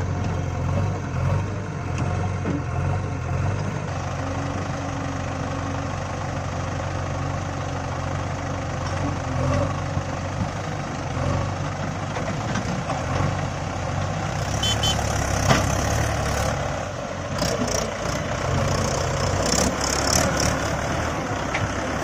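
Heavy diesel engine of the loading machinery running steadily at low speed, with a series of sharp clanks and rattles in the second half.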